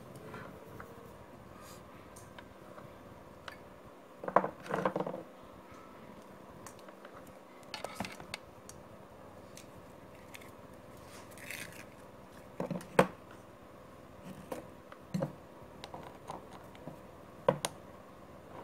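Small metal coaxial antenna connectors handled and screwed together on a wooden bench: scattered clicks, taps and brief scrapes, a handful spread through, over a faint steady hum.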